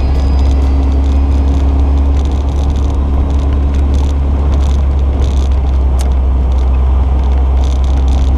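Open GBS Zero sports car driving at steady road speed: its engine running in a steady note under heavy wind and road rumble on the microphone. The engine tone fades about halfway through and comes back near the end.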